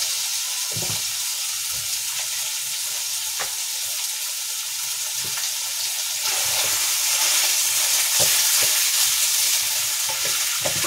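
Raw minced beef sizzling as it hits a hot non-stick frying pan, being pushed and broken up with a wooden spatula. There are a few light knocks of the spatula on the pan, and the sizzle grows louder about halfway through as more meat goes in.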